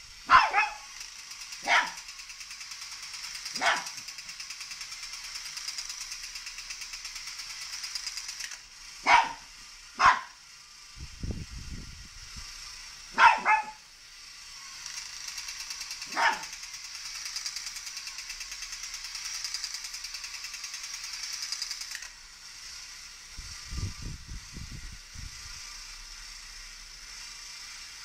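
A dog barking sharply about seven times at uneven intervals. Under the barks runs a steady high-pitched whir with a fast pulse, typical of a toy robot's small motor. Twice there is a short burst of low, rapid rattling.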